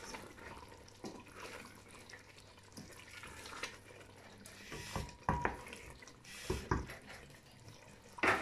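Wooden spoon stirring a thick, simmering chicken curry in a stainless steel pot: wet squelching and bubbling with scattered knocks of the spoon against the pot. A sharper knock comes near the end.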